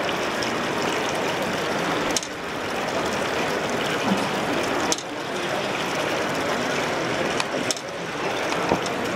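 Busy exhibition-hall background noise: a dense, steady crowd din that shifts abruptly every two to three seconds.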